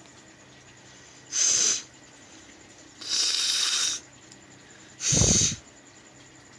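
Three forceful blasts of air out through the nose of a person with a head cold and a runny nose. The middle blast is a hiss about a second long, and the last is the loudest and deepest.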